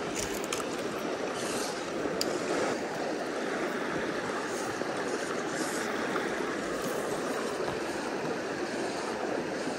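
Small freestone mountain stream running over cobbles and gravel: a steady, even rush of water.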